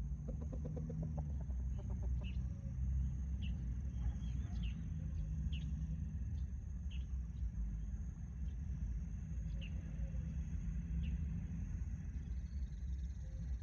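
Rooster giving a soft, rapid clucking trill in the first second or so, followed by scattered short high chirps every second or two over a steady low rumble.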